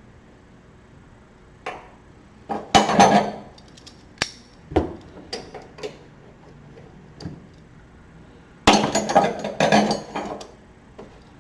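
Metal hand tools clinking and knocking in short bursts, with two louder clusters of rapid clanks about three seconds in and near the end.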